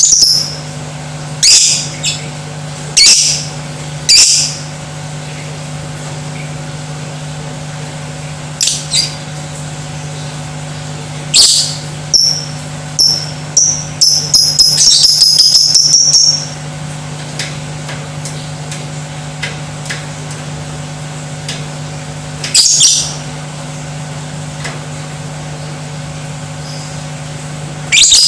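Lovebird giving short, sharp, high-pitched squawks in scattered bursts, with a fast chattering run of calls about halfway through. A steady low hum sits underneath.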